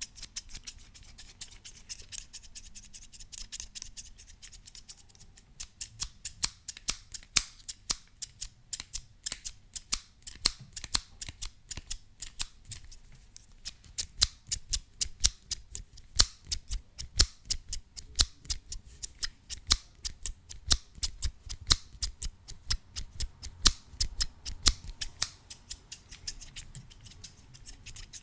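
Scissors snipping close up: a run of sharp metallic clicks, about three a second, fainter at first and louder after the first five seconds or so.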